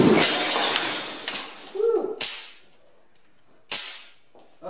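CRT picture tube of a powered-up 16-inch PC monitor, with no implosion band, imploding as a hammer strikes it: a sudden bang and about a second of shattering glass, then two more sharp cracks.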